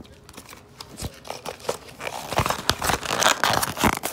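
Crinkling and crackling of a plastic blind-bag wrapper being handled and opened, with irregular small clicks; sparse at first, busier after about a second.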